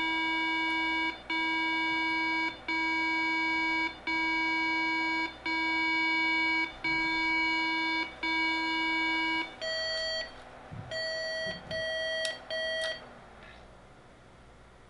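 Beep code from the speaker of an IBM PS/2 Model 77 motherboard running a custom debug BIOS: seven long low beeps in a steady row, then about five shorter, higher beeps. Low beeps followed by high beeps is the pattern the BIOS gives when the register test in the suspect chip passes; when the intermittent parallel-port fault is present, it gives all high beeps.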